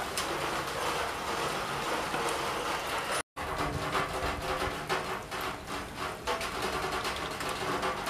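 Steady rain noise with a faint steady hum beneath it. The sound cuts out for a moment about three seconds in.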